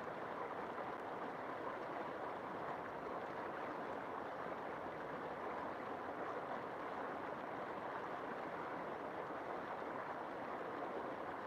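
River water flowing and burbling in a steady rush.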